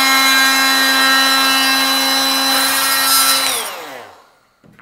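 Oscillating multi-tool with a saw blade cutting into a timber architrave, cutting out the notch for the door frame's groove: a steady, high-pitched buzz. About three and a half seconds in the tool is switched off and winds down, falling in pitch, with a faint click near the end.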